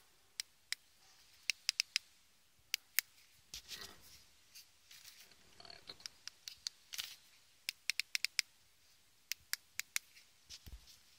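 Sharp little plastic clicks, singly, in pairs and in quick runs, from the buttons of an aftermarket Suzuki Ignis remote central-locking key fob being pressed over and over. No lock actuator answers: with the driver's door left open, the car will not lock.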